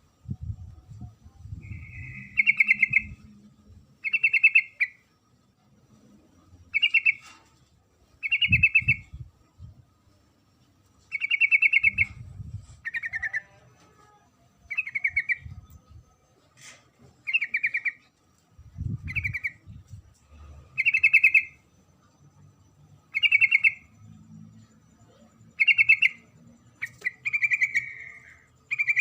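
Female yellow-vented bulbul (trucuk) calling: short, fast-trilled chattering notes repeated about every two seconds, the call used to lure males. Low rumbles come and go underneath.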